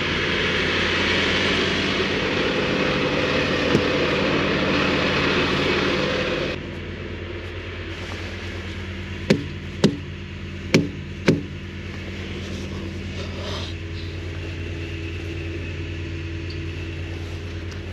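Semi truck's diesel engine idling steadily, with a loud rushing noise over it that cuts off suddenly about six seconds in. Four sharp knocks come in the middle.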